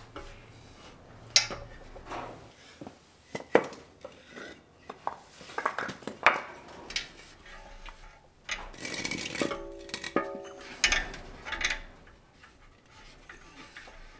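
Metal clanks, knocks and scrapes as a car muffler is handled and test-fitted into a golf cart's steel frame. The knocks are irregular, with a longer scraping stretch about nine seconds in.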